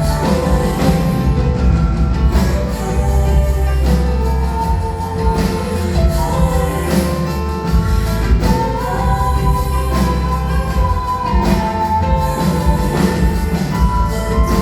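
A live song performed in a concert hall: a woman singing long held notes over a band with a heavy bass and a steady beat.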